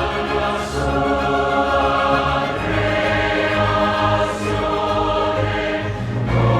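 Choral music: a choir holding long sustained chords, moving to a new chord about two and a half seconds in and again near the end.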